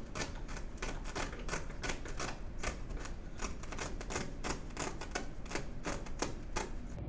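Hammer tapping small nails into trim: a quick, even series of light taps, about three a second, that stops just before the end.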